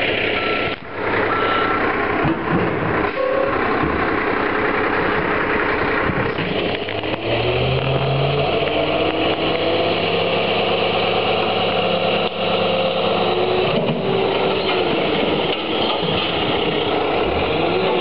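Front-loading garbage truck: its reversing alarm beeps for the first couple of seconds, then the engine revs up to power the hydraulics as the lift arms raise a steel dumpster over the cab. The engine pitch rises about six seconds in, holds, and falls away near the end, with a few knocks from the container and arms.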